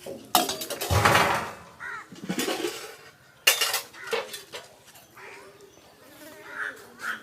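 Metal serving utensils clinking and scraping against pots and plates as food is dished out: a sharp clink just after the start, a louder scrape about a second in, another clink about three and a half seconds in, then lighter clatter.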